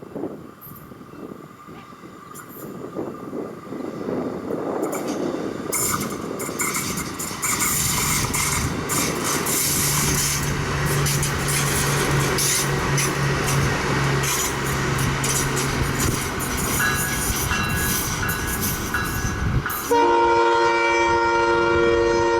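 SMART diesel multiple-unit commuter train approaching and rolling past, engine and wheels growing louder from about four seconds in, with a high-pitched screeching, grinding from the running gear. About twenty seconds in, a loud, steady blast of the train's horn starts.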